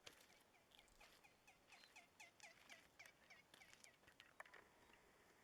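Faint bird call: a fast run of short notes, each falling in pitch, about four a second, stopping about three and a half seconds in.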